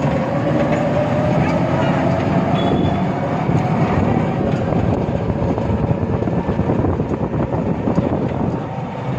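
Steady rumble and rattle of a moving vehicle, with a faint wavering tone running through it.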